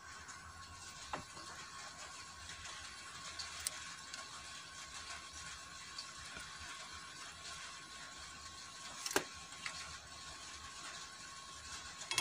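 Quiet workbench room tone with a faint steady whine and low hum, broken by a few light clicks and taps, the clearest about nine seconds in, as the amplifier's equalizer circuit board and wires are handled and soldered.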